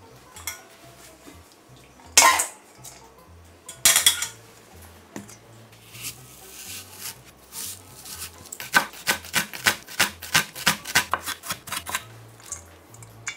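Metal pan and steel strainer clattering, with two loud ringing knocks about two and four seconds in. Then a chef's knife chopping green onion on an end-grain wooden cutting board, quick strokes about five a second for roughly three seconds.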